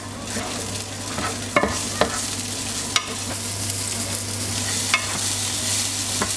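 Diced pancetta sizzling in hot oil in a nonstick frying pan, with a steady hiss. A wooden spatula stirring it gives a few sharp knocks and scrapes against the pan.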